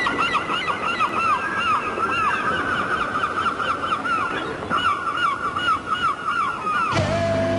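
A flock of birds calling, many short arched calls overlapping over a steady rushing noise like surf. Music begins near the end.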